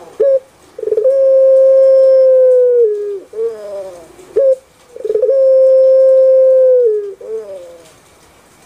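Puter pelung, a Barbary dove (Streptopelia risoria), cooing twice. Each coo is a short note, then one long held note of about two seconds that drops in pitch at its end, then a few short wavering notes.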